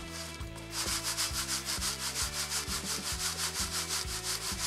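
Crushed-stone powder being shaken back and forth in a round wire-mesh sieve: a rhythmic hiss of grit sliding over the mesh, several strokes a second in an even rhythm.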